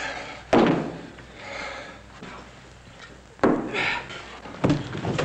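Fistfight impacts: three sudden thuds, about half a second in, about three and a half seconds in, and near the end.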